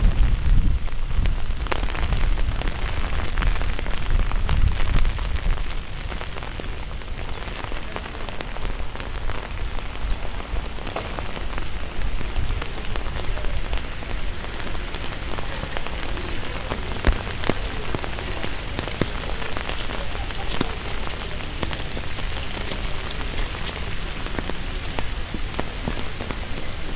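Steady rain falling, with many individual drops ticking close by on surfaces. A low rumble sits under it for the first six seconds or so.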